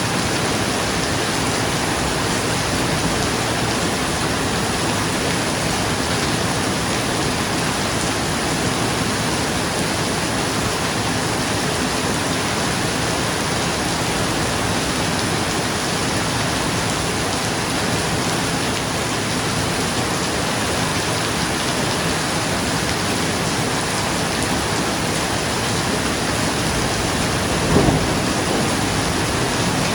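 Steady rain falling on a roof, an even hiss at a constant level. A single brief low thump stands out near the end.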